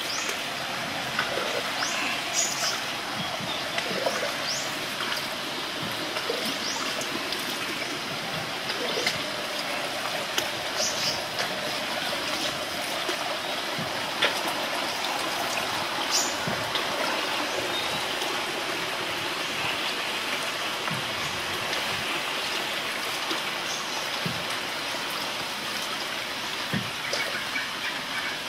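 River water trickling and gurgling steadily past a wooden canoe as it glides along, with scattered small ticks and drips.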